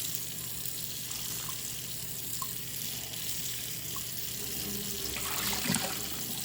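Kitchen faucet running steadily into a sink while whole catfish are rinsed and cleaned, with a few brief handling knocks about five seconds in.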